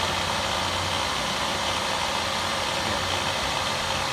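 Solberga drill press running at 96 rpm on its two-speed motor's second speed: a steady hum and whir from the motor and gearbox, with no change in pitch.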